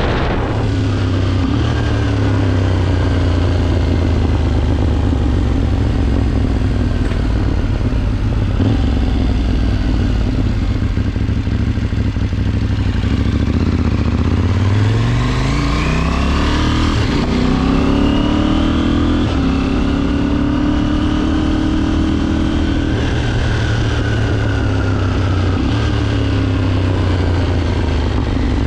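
KTM 790 motorcycle's parallel-twin engine under way. It runs steadily, then the revs climb about halfway through, break for a gear change, hold higher for a few seconds and slowly fall back to a steady cruise.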